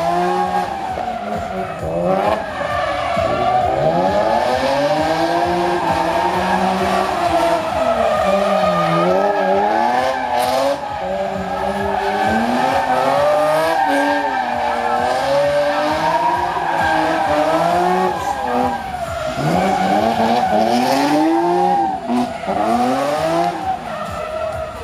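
BMW Z3 drifting: its engine revs rise and fall again and again while the tyres squeal continuously.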